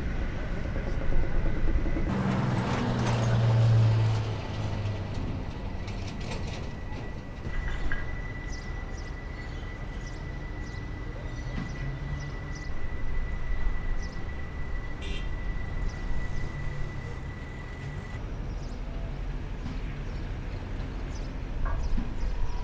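Steady low rumble of ship engines with busy harbour noise. A louder low hum swells about two to four seconds in, and a thin steady high whine runs through the middle.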